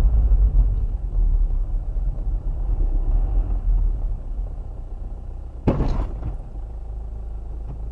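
Low, steady rumble of a car's engine and road noise heard inside the cabin through a dashcam microphone, with one short, sharp bang about six seconds in.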